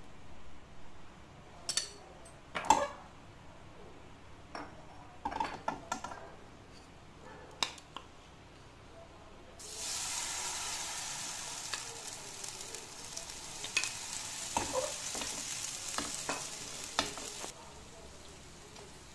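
Suji batter sizzling on a hot, greased tawa: a steady hiss that starts suddenly about halfway and cuts off suddenly near the end. Before it come scattered clinks and scrapes of a spoon and ladle against the tawa.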